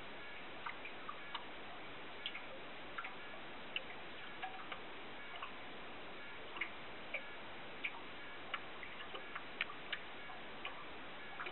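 Underwater recording: a steady hiss with irregular sharp clicks and ticks, roughly two a second, around fish feeding on a dissolving bait ball.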